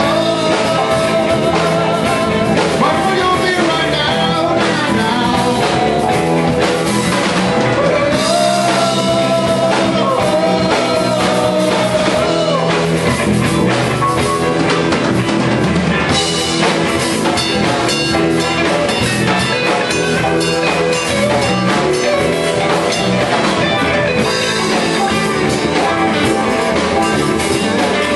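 Live rock band playing: electric guitars, bass guitar and drum kit, with a man and a woman singing into microphones.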